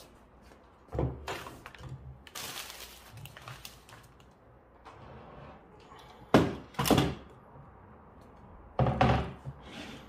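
Clunks and knocks of a metal cooking pot and a portable butane gas stove being set down and shifted on a wooden table: a thud about a second in, two close together past the middle, and another cluster near the end.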